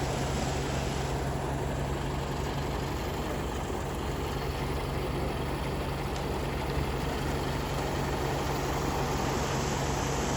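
Ready-mix concrete mixer truck's diesel engine running steadily with an even low hum.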